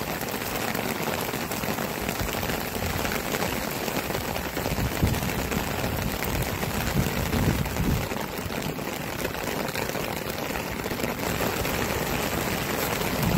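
Heavy downpour of tropical rain falling steadily on wooden decking and brick paving.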